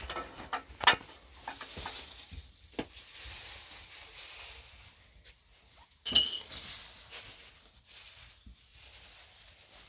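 Knocks and clinks of hard household objects, sharpest in the first second, then a softer scraping stretch and a single ringing clink about six seconds in.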